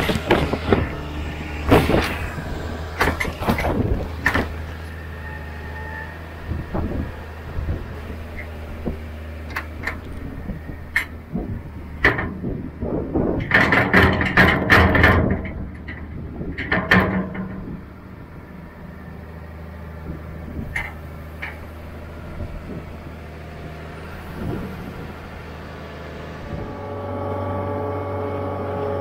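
A farm loader's engine running steadily, with repeated clanks and knocks from the loader bucket as silage is scooped, thickest about halfway through. Near the end the engine revs up and runs louder.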